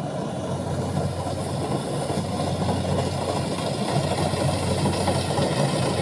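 Kubota DC-70 combine harvester's diesel engine running steadily with a low hum, slowly growing louder as the machine comes closer.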